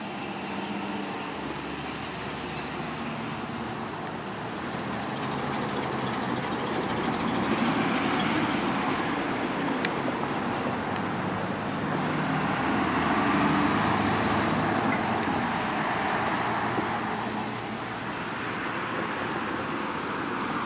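An ambulance and a fire rescue truck driving past one after the other, engine and tyre noise swelling twice as they go by.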